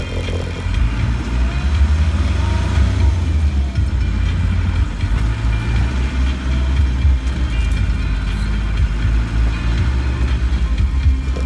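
Land Rover engine and drivetrain heard from inside the cab while driving slowly off-road: a loud, steady low drone.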